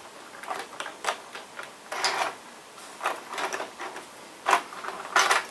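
Irregular clicks, knocks and clatter of model railway rolling stock and small items being picked up and set down on the layout's baseboard.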